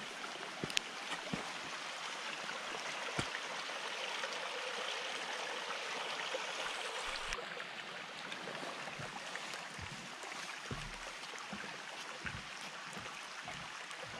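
A shallow rocky mountain stream rushing, a steady wash of water, with a few soft low thumps in the second half.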